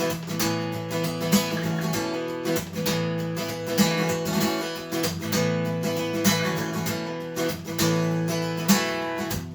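Acoustic guitar strumming a steady chord pattern, with a sharper accented strum about every two and a half seconds.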